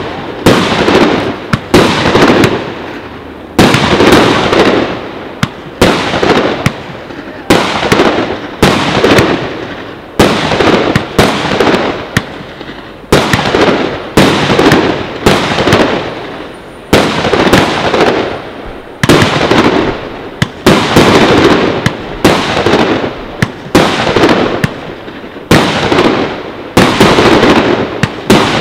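Aerial fireworks bursting in a rapid series of loud bangs, roughly one a second and sometimes closer together, each followed by a short echoing tail.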